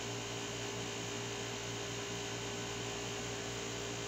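Steady low electrical hum with an even background hiss: room tone, with no distinct sound event.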